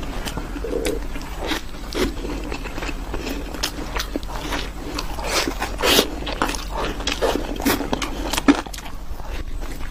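Close-miked chewing and biting of chocolate: wet mouth smacks and crisp clicks that come irregularly, a few each second.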